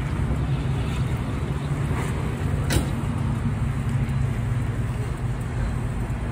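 Steady low rumble of a running vehicle, with one sharp click a little under three seconds in.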